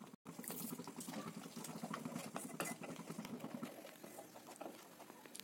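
Spiced gravy in a kadhai coming up to the boil after water is added, a faint, irregular patter of small bubbles and pops.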